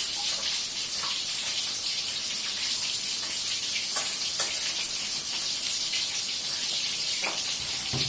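Chicken frying in hot oil: a steady high sizzle with scattered pops, the sharpest about four seconds in and again after seven seconds.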